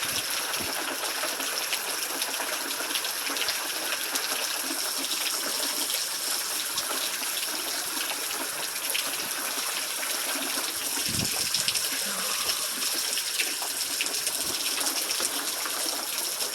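Steady rain falling with water running and splashing: an even hiss dotted with fine drop ticks.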